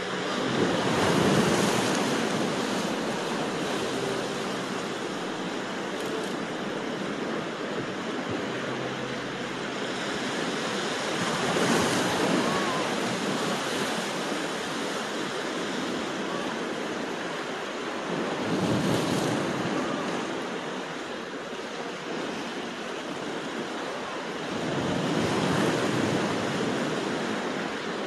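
Sea waves washing against a rocky shore: a steady surf wash that swells louder four times as waves break on the rocks.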